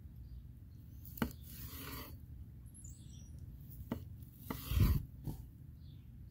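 Large knife slicing a grilled New York strip steak on a wooden cutting board: rasping sawing strokes through the seared crust and several sharp knocks of the blade on the board, the loudest about three-quarters of the way through.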